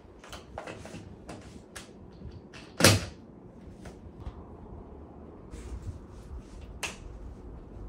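Scattered clicks and knocks from work on a heavy sliding glass door panel at its bottom edge. There is one loud sharp knock about three seconds in and another near the end.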